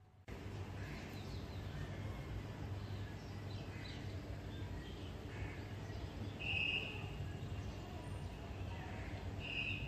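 Birds chirping over a steady low background rumble, with two short, clear high calls about six and a half and nine and a half seconds in.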